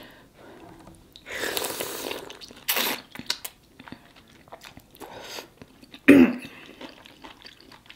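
Close-miked wet eating: biting into and chewing a juicy pineapple chunk coated in seafood boil sauce, with a longer noisy slurp a little over a second in, a sharp smack near three seconds, and scattered wet mouth clicks. The eater makes a short voiced hum about six seconds in.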